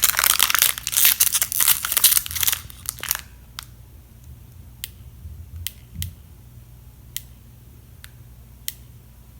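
Pokémon booster pack's foil wrapper crinkling and rustling as cards are pulled out of it, stopping about three seconds in. After that, a handful of light, sharp clicks.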